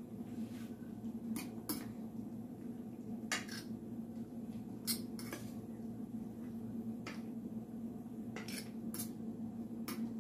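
A utensil clinking and scraping against a bowl as shredded potato pancake batter is stirred, with about ten light, irregular clinks over a steady low hum.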